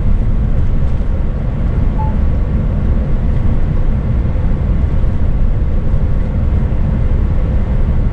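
Scania S500 tractor unit's 13-litre inline-six diesel and tyres droning steadily while the truck cruises on the highway.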